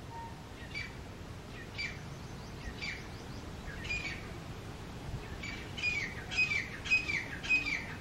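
Grey francolin giving its territorial call: a series of short, sharp, falling notes, about one a second at first, then coming faster and louder near the end.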